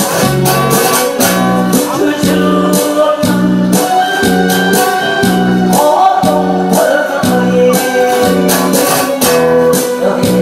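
Live acoustic guitar and hand-played djembe with singing, the drum keeping a steady quick beat under the strummed chords.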